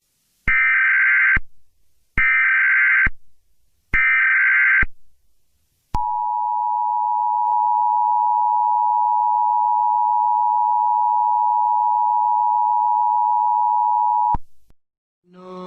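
Emergency Alert System alert: three harsh data-tone bursts of the digital header, each about a second long. Then the two-tone attention signal sounds steadily for about eight seconds and cuts off suddenly.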